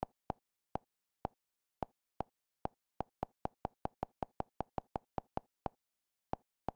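Short, identical electronic navigation blips from a streaming box's on-screen channel guide, one for each step as the channel list scrolls down. They start about half a second apart, speed up to about five a second in the middle, then slow again, with silence between them.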